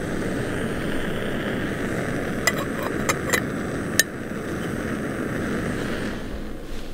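Backpacking gas canister stove burning steadily under a cooking pot, a continuous rushing sound, with a few light clicks of handling about halfway through. The burner sound fades near the end.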